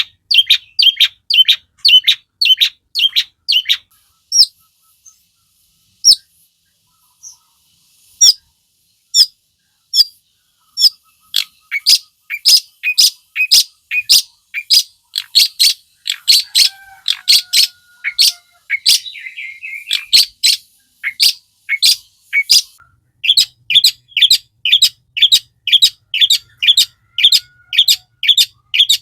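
Long-tailed shrike (cendet) calling in long trains of sharp, harsh repeated notes, about three a second. The notes thin to a few scattered ones early on, then run dense again, with a short warbling phrase about two-thirds of the way through.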